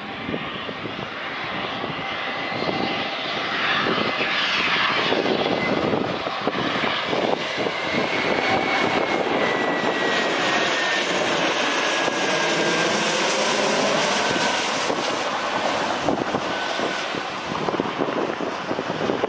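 Large twin-engine business jet passing low overhead with its gear down on landing approach. Its engine noise builds, holds loud, then starts to fade, with a high whine that slowly drops in pitch as it goes past.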